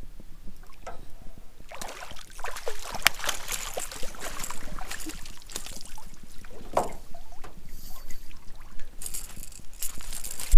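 A hooked blue salmon splashing and thrashing at the surface as it is scooped into a landing net beside an aluminium dinghy, starting about two seconds in. Then water runs off the net and there are clinks of the net's metal frame against the boat as it is lifted aboard.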